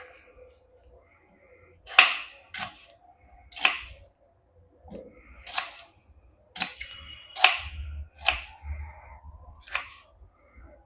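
A kitchen knife chopping tomatoes on a cutting board: about nine sharp, irregular strikes, roughly one a second.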